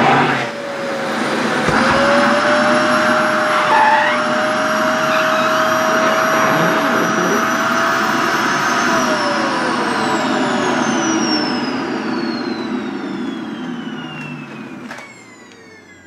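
Canister vacuum cleaner (SHARP EC-KP7F-A) running, its hose nozzle sucking at the fabric of a skirt; the motor's whine dips briefly about half a second in, then holds steady. From about nine seconds in, the motor winds down, its whine falling steadily in pitch and fading.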